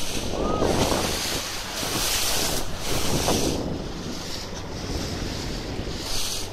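Wind buffeting the microphone in gusts over the rush of water along the hull of a boat under way.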